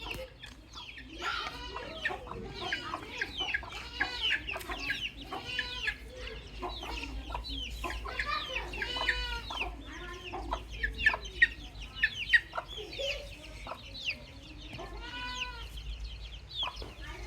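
Baby chicks peeping, many short high calls overlapping one another without pause, with lower clucking calls underneath.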